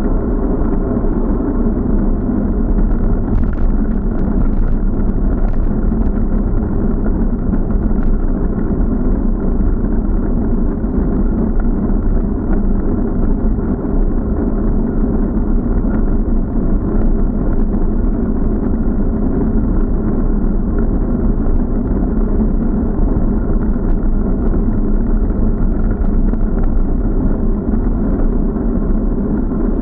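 Steady, muffled rumble of wind and road noise on a bike-mounted action camera's microphone while riding along a road, with a few faint clicks.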